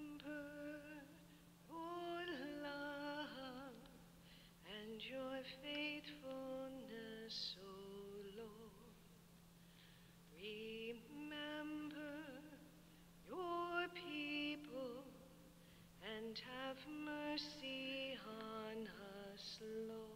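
A woman's voice singing a slow Communion hymn in phrases a few seconds long, with short pauses between them. A steady low electrical hum runs underneath.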